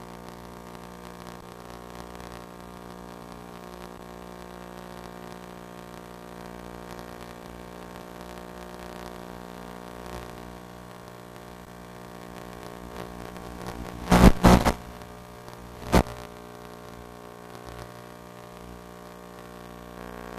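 Steady electrical hum with many overtones. It is broken by three loud crackles in quick succession about fourteen seconds in, and one more crackle two seconds later.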